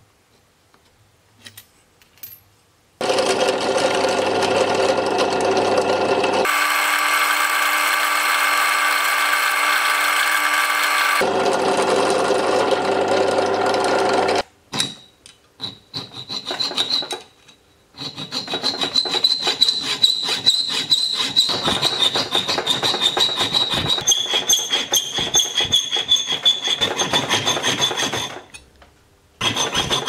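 A fine-bladed hand frame saw cutting into a Nordic gold euro coin clamped in a vise, with fast back-and-forth strokes and a high ringing from the metal; the sawing starts in the second half and breaks off briefly near the end. Before it, a steady loud sound made of several held tones runs for about ten seconds and changes in tone twice.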